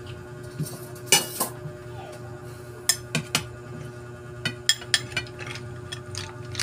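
Spoons and forks clinking and scraping against plates while eating, in scattered sharp clicks, the loudest about a second in and a quicker run of them around the middle. A steady low hum lies underneath.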